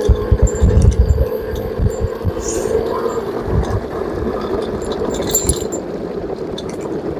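A DIY electric scooter passes close by at speed, its tyre and wind noise rumbling loudest in the first second or two, then easing off as it rides away.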